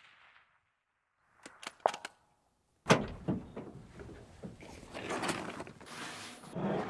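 Gear being handled and moved. A loud bang's echo fades at the start, then come a few sharp clicks, then a heavy thunk about three seconds in, followed by steady sliding and clattering.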